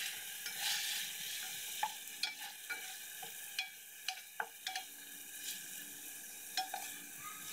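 Chicken pieces sizzling in hot oil in a pot on medium heat while a wooden spoon stirs them, with scattered sharp knocks of the spoon against the pot.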